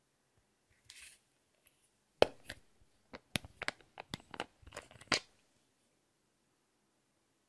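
Plastic BB cream tube handled in the hands: a sharp click about two seconds in, then a quick run of small plastic clicks and crackles as its screw cap is twisted off.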